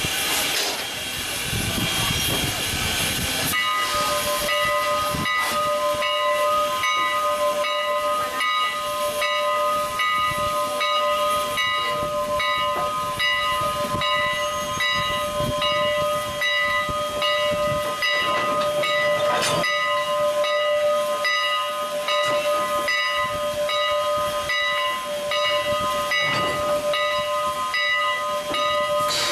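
Canadian National 89, a 2-6-0 Mogul steam locomotive, working. A steady hiss of steam and a sustained chord of several steady tones set in a few seconds in and hold, over a regular beat of exhaust chuffs about twice a second.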